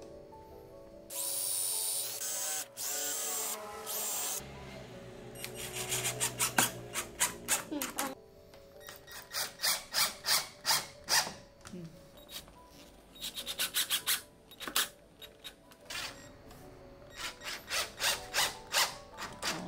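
Cordless drill/driver driving screws into the side of a wooden drawer, running in short bursts with a loud whirring stretch early on and then many sharp clicks in clusters.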